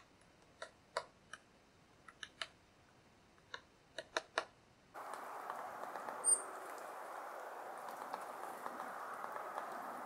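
Hairy woodpecker hammering its bill into a wooden stump: about a dozen sharp, irregular taps in the first five seconds. Halfway through, a steady outdoor hiss takes over, with a few faint taps and one short high-pitched note.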